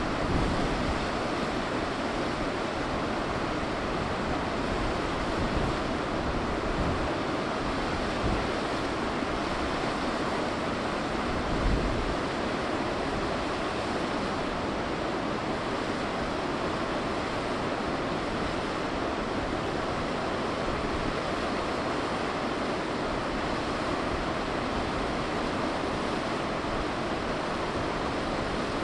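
Steady rush of flowing mountain-stream water, with irregular low wind buffeting on the microphone, strongest about twelve seconds in.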